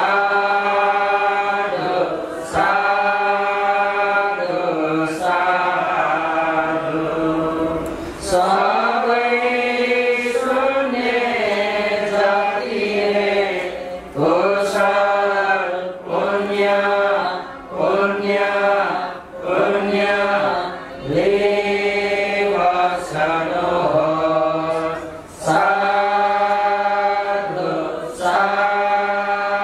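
Buddhist devotional chanting: drawn-out, melodic chanted phrases, each a second or two long, with short breaks between them.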